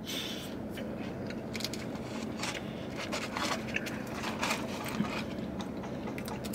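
Close-up eating sounds: chewing and wet mouth clicks, with a spoon scraping sauce from a small cup, over a steady low hum.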